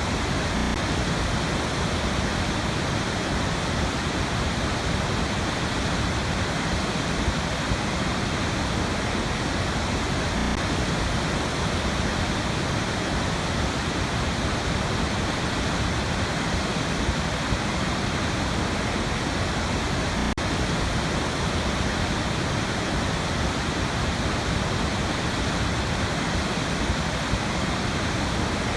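Waterfall on a river, a steady, even rush of falling water.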